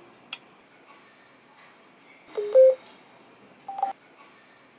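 Electronic prompt beeps from a Bluetooth amplifier switched on in Bluetooth mode, played through the speaker: a two-note rising beep about two and a half seconds in, then a single higher beep about a second later. A faint click comes near the start.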